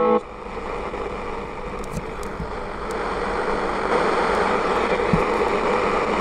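A music station on the shortwave band of a Retekess TR626 portable radio cuts off just at the start, leaving a steady hiss of static between stations from the radio's speaker. The hiss slowly swells, with a few faint clicks.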